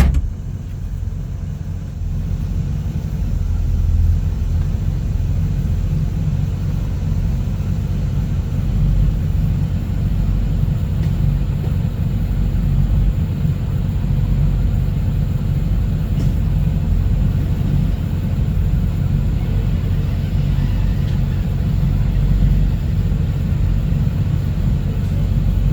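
Small vehicle running as it is driven along, a steady low rumble of engine and ride noise without a break.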